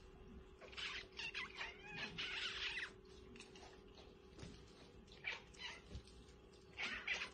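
Cats mewing: a series of short, high-pitched mews, busiest in the first three seconds and again near the end, over a faint steady hum.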